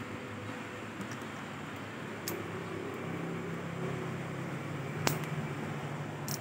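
Shimano Nasci 6000 spinning reel being cranked to show that it works: a steady soft whir, with a few light clicks.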